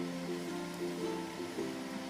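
Background music: a plucked ukulele-like melody over a held bass note.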